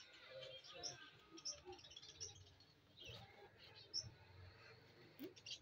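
Faint, scattered short bird chirps, with a single soft tap about four seconds in.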